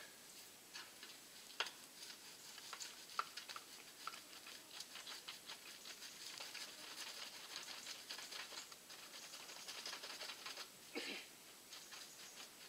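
Faint, irregular light taps and clicks, with a couple of sharper knocks about one and a half and three seconds in, and a short scraping rustle near the end.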